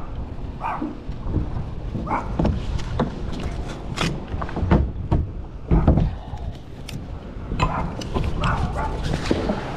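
A small dog barking and yipping in short bursts, with several sharp knocks and clatter around the middle.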